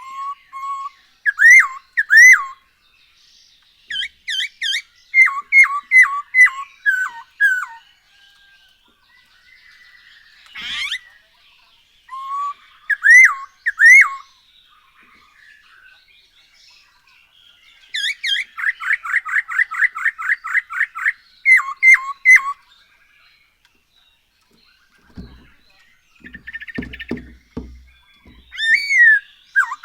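Poksay hongkong laughingthrush singing: bouts of loud, slurred whistled notes that repeat in short phrases. About two-thirds of the way in comes a fast run of roughly six notes a second. A few low knocks come near the end.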